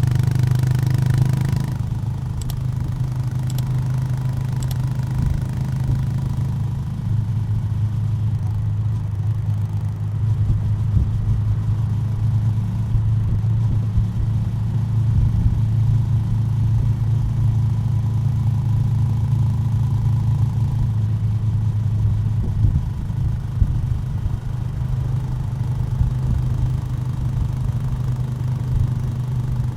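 Honda GB350's air-cooled single-cylinder engine running on the move at a steady, low-pitched note that barely changes. There is a rush of hiss over the first two seconds.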